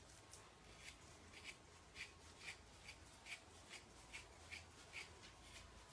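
Faint, rhythmic short scratchy strokes, about two to three a second, as wiry terrier coat is hand-stripped: hair being pulled and rubbed out of an Australian terrier's coat.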